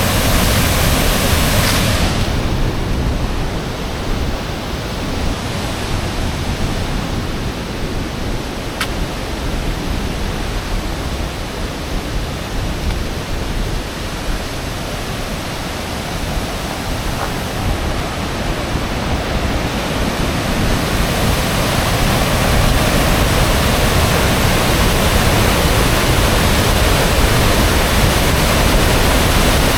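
Steady, loud rush of a waterfall. The high hiss in it eases off for a stretch from about two seconds in until about twenty seconds in.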